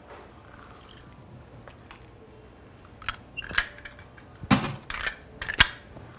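Limes being squeezed in a hand-held citrus press over a mixing glass, with the press and glassware handled on the bar: a few sharp clicks and knocks in the second half, after a quiet start.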